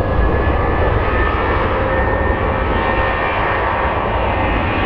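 A Boeing 737-700's two CFM56-7B24 turbofan engines at takeoff thrust as the jet accelerates down the runway. A steady, loud rushing noise with a deep rumble and a faint high whine.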